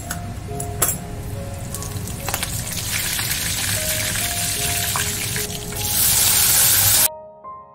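Mustard and cumin seeds sizzling in hot oil in a steel kadai, with a few sharp pops, the sizzle growing louder as curry leaves go in. Chopped tomatoes tipped into the oil near the end give the loudest sizzle, which cuts off suddenly into soft piano music.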